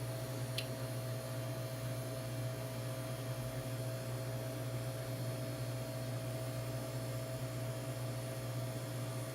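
Steady low electrical hum with a faint higher whine over it, and one light tick about half a second in.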